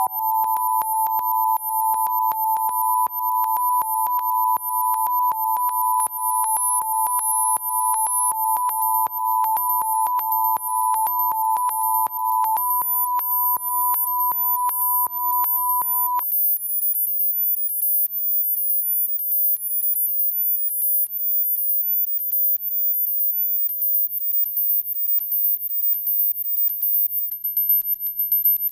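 Sine-wave oscillators in a Max/MSP patch sounding several steady pure tones together, some high and some very high, with an even clicking pulse of about three clicks a second. The tones are faded out one at a time: the lower ones stop about twelve and sixteen seconds in, and the very high ones go one by one near the end.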